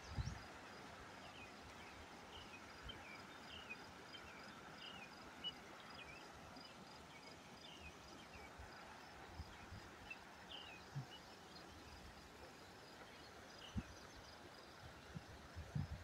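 Faint steady rush of a small stream spilling over rocks, with a bird giving short, falling chirps about once a second and a faint, high, pulsing insect-like trill behind.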